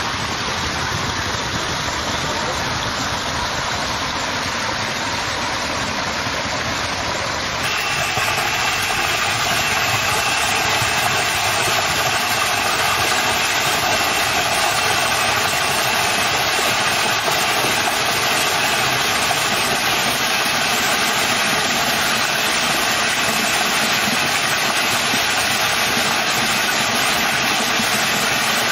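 Water gushing from the spillway pipes of a miniature model dam onto a spinning paddle turbine, a steady rushing. A few seconds in, the sound changes abruptly and gets a little louder, with a steady whine from the spinning turbine and its small generator over the water.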